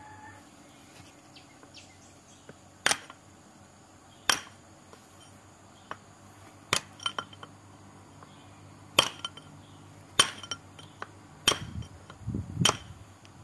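Hammer blows on a steel chisel held against the universal joint of a Mitsubishi Storm's propeller shaft: about seven sharp metallic clinks, a second or more apart, knocking at the joint's bearing cap to get the joint apart. Duller low knocks come near the end.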